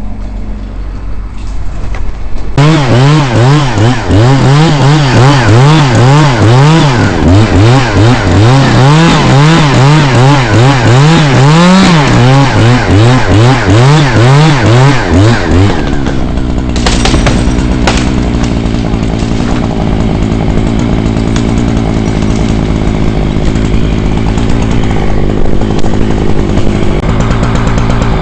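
Chainsaw starts about two seconds in and is revved up and down over and over, about two surges a second. After about halfway it settles to a steadier, lower-pitched run.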